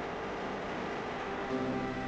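A steady, noisy rushing background, with background music notes coming in about one and a half seconds in.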